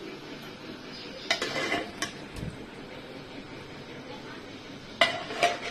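Metal utensil clanking against a cooking pot: a cluster of sharp clanks about a second and a half in, and two more near the end, over a steady low background hiss.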